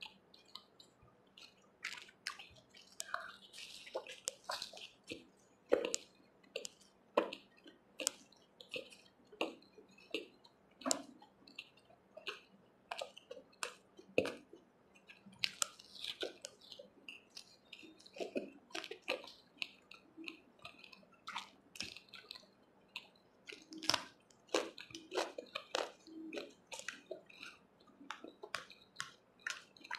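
Close-miked chewing and wet mouth sounds of someone eating puri dipped in chickpea curry: irregular soft smacks and squishes, several a second.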